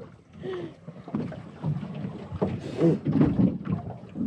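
Wind on the microphone and water moving against a small boat's hull, with scattered knocks and rustles from handling a freshly caught squid over a bucket.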